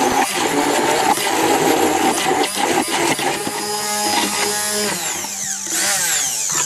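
Electric immersion (stick) blender running in a tall beaker, puréeing wild garlic leaves and stems with oil and salt into a thick paste. It runs steadily, then stops at the very end.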